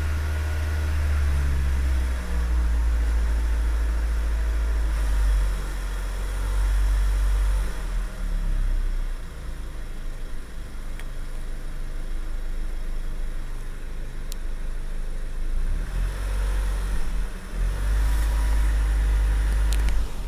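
2002 Audi A3's 1.8 litre 20-valve turbo four-cylinder (AUM) engine running, its sound swelling and easing several times, carrying the loud rattling noise from the left side of the engine that the owner is trying to diagnose.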